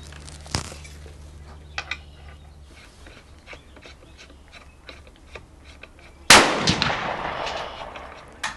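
A single shot from a Ruger 10/22 rimfire rifle fitted with a muzzle brake, about six seconds in, its report trailing off over about two seconds. A few faint clicks of handling come before it.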